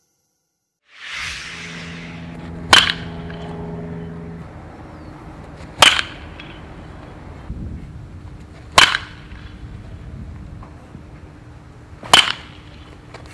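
Baseball bat striking pitched balls in batting practice: four sharp cracks about three seconds apart, over a steady background hiss.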